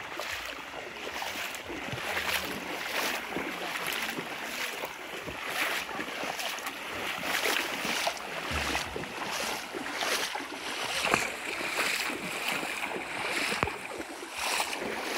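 Several people wading through a shallow river, their feet splashing through the water in irregular surges about once a second.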